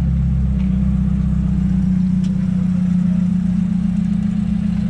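Lowered Nissan Hardbody pickup's engine running at a slow crawl as the truck rolls past: a steady, even low drone.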